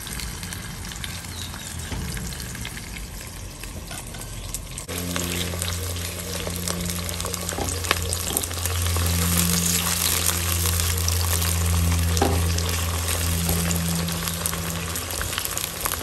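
Sliced onions frying in palm oil in an enamelled cast-iron pot, sizzling steadily as a spatula stirs them through. A low hum comes in about five seconds in.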